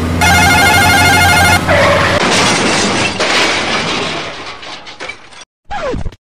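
Edited sound effects for a toy vehicle crash. A low engine drone runs under a loud pulsing ringing tone lasting about a second and a half. Then comes a long noisy crash sound that fades away, and a short gliding sound near the end.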